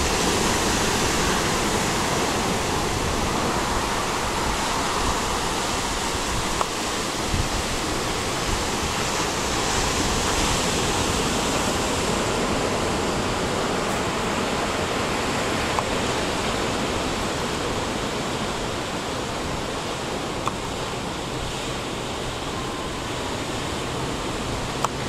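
Ocean surf breaking on the beach: a steady, even rush of noise with no distinct individual waves, and a few faint clicks.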